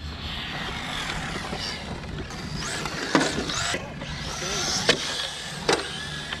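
Electric 1/10-scale RC cars driving on asphalt: a steady tyre and running noise with a high motor whine that rises in pitch a few times. A few sharp clicks come in the second half.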